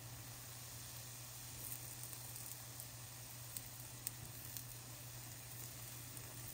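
Crepe batter sizzling faintly in an oiled crepe pan, with a few light ticks in the middle as a silicone spatula works under the pancake's edge. A steady low hum runs underneath.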